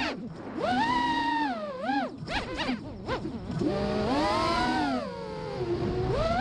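Mini quadcopter's Emax RS2205 2300kv brushless motors spinning 5-inch 3D props, a buzzing whine whose pitch swoops steeply up and down with the throttle. There is a deep dip about two seconds in, a cluster of quick swoops just after, and a long low dip near the end.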